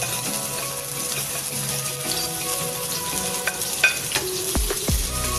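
Chopped onions and garlic sizzling in hot oil in a non-stick wok, with a spatula clicking against the pan a few times as they are stirred, loudest near the end.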